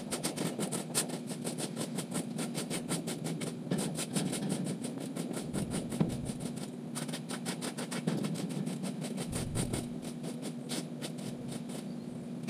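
A small engine running steadily, with a rapid, even clicking over its hum.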